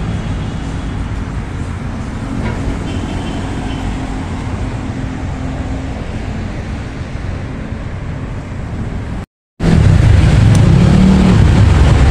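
Road traffic running steadily along a busy street. About nine seconds in, the sound cuts out for a moment, then comes back louder with a heavy low rumble.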